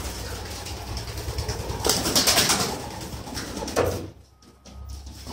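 Racing pigeons cooing in a small loft, with a brief rustling burst about two seconds in.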